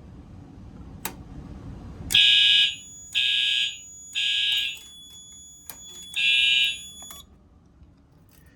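Fire alarm horns sounding a general alarm in the temporal-three pattern: three short blasts, a pause, then a fourth blast, after which they stop. A single click comes about a second in.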